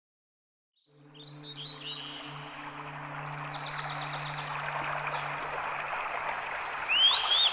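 Birds chirping and singing, fading in from silence about a second in over a steady background hiss, with soft held low notes underneath. Near the end, several louder chirps rise quickly in pitch.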